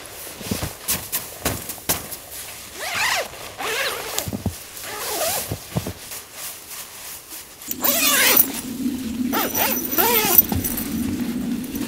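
Tent door zipper being pulled open in several runs, with rustling and clicks of the tent fabric. A steady low hum comes in about eight seconds in.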